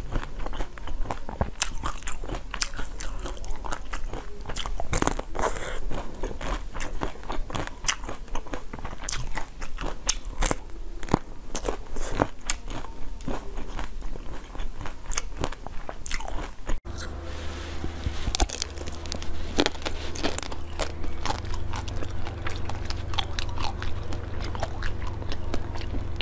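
Close-miked biting and crunching of frozen ice treats: dense, sharp cracks of ice breaking between the teeth, with chewing. Partway through the sound jumps to a different crunching take with a low steady hum under it.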